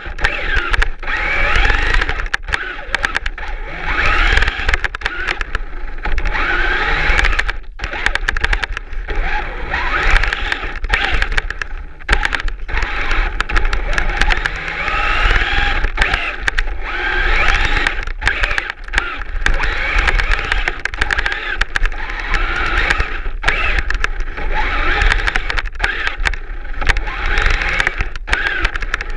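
Traxxas Slash 4x4 RC truck's electric motor and geartrain whining as it plows through deep snow with a cardboard blade. The whine rises and falls with the throttle and cuts out briefly again and again, over a low rumble from the chassis.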